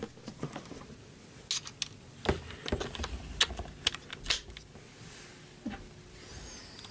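Irregular light clicks and taps from hands handling a plastic furniture-strap wall bracket and a screwdriver, dying away after about five seconds.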